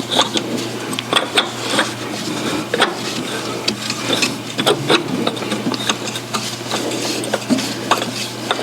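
Handling noise from a camera being repositioned on its mount: irregular rubbing, scraping and small clicks close to the microphone, over a steady low hum.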